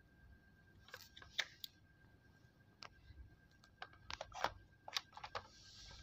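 Faint, scattered short clicks and taps, a dozen or so, over a faint steady high whine.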